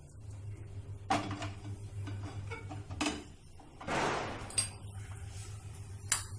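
Roasted mawa being scraped out of a pan into a bowl: a few sharp knocks of spatula, pan and bowl, with a longer scraping swish about four seconds in, over a low steady hum.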